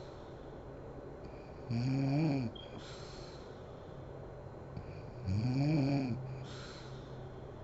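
A sleeping woman snoring twice, about three and a half seconds apart: each snore is a humming drone whose pitch rises and then falls, followed by a short breathy hiss.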